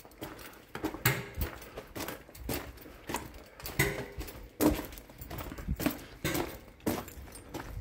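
Footsteps crunching on gravel and ballast, about two steps a second at a walking pace.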